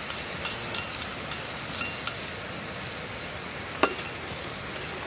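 Chicken neck meat sizzling and bubbling in wasabi-ponzu sauce in a skillet, a steady frying hiss. There are a few light clicks, the sharpest about four seconds in.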